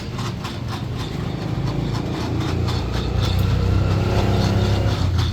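A motor vehicle's engine running close by in the street, with a low steady hum that grows louder over the last few seconds as it draws near.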